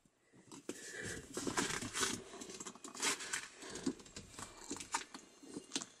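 Scissors working at a tight plastic zip tie on a car's shift boot: irregular clicks and snips, with the boot rustling and crinkling as it is handled.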